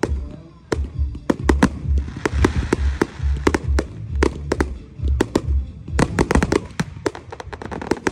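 Fireworks display: a rapid, irregular run of sharp bangs from aerial shells bursting overhead, with a denser crackle about two to four seconds in.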